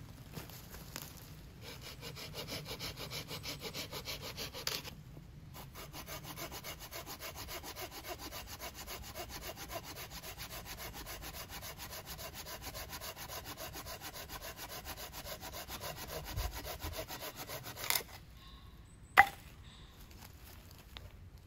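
Fast, even strokes of a hand tool working wood, with a short pause about five seconds in. The strokes stop abruptly near the end, and a single sharp crack follows about a second later.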